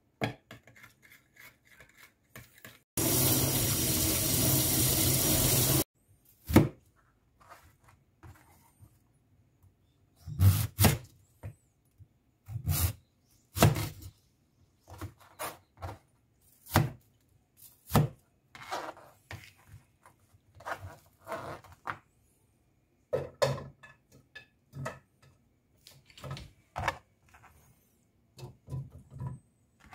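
Kitchen knife cutting a Korean radish into chunks on a plastic cutting board: sharp, irregular knocks as the blade goes through and hits the board, a second or two apart. A loud, steady rushing noise lasts about three seconds, a few seconds in.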